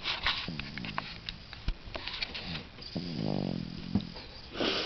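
A four-month-old baby snoring in her sleep: a short snore about half a second in, then a stronger, pitched snore lasting about half a second about three seconds in, with small clicks in between.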